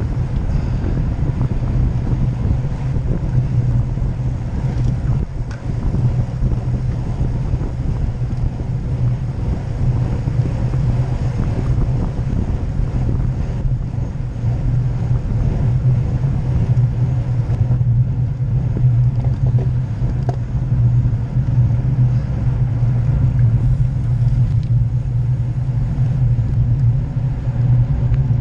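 Steady wind and road rumble on an action camera riding along on a road bike at race pace, a low, even rush with no letup.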